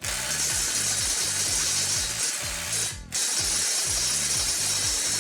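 Kobalt XTR 24-volt cordless impact driver hammering at full speed on a nut torqued to 375 foot-pounds. It stops for a moment about three seconds in, then hammers again.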